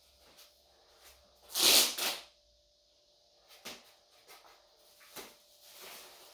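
Packaging being handled during an unboxing: a loud rustling scrape with two surges, a second and a half to two seconds in, then a few short light knocks and softer rustles.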